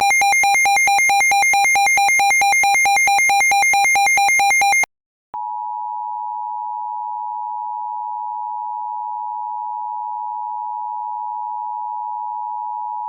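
Emergency Alert System alert tones: a harsh electronic tone warbling between two pitches about five times a second for about five seconds, then after a brief gap the steady two-tone EAS attention signal held for about eight seconds.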